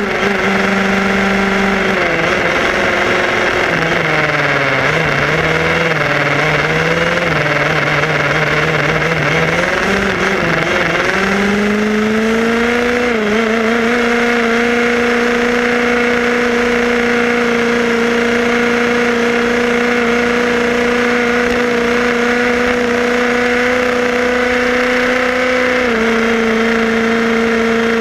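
Electric motor and gear train of a Tamiya radio-controlled buggy whining as it drives, over a hiss of tyre and road noise. The whine drops in pitch about two seconds in as the car eases off, wavers, then climbs back up after about eleven seconds and holds steady, dipping slightly near the end.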